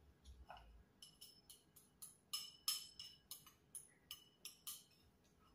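A quick run of light clinks, about four a second, as a utensil taps and scrapes inside a small ceramic bowl while food is scooped from it. Each clink rings briefly at the same pitch.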